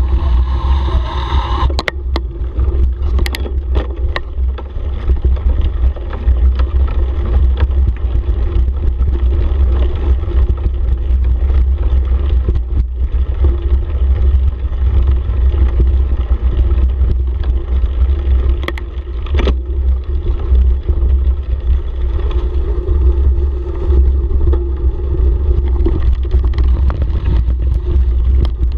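Bicycle riding fast downhill over gravel and a dirt trail: steady rumbling wind on the camera microphone over tyre noise, with a few sharp clicks and rattles from the bike over bumps.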